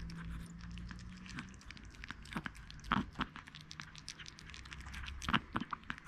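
A Chihuahua puppy licking and chewing at a peeled banana: a run of small wet clicks and smacks, with a few louder ones about three seconds in and again near the end.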